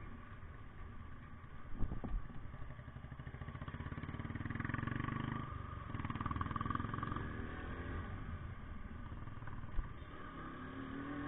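Motorcycles ridden slowly at low revs: the KTM 125's single-cylinder engine carrying the camera, with the Bullet 350 running close alongside. The engine noise swells into a pulsing beat between about four and seven seconds in, and there is a short knock about two seconds in.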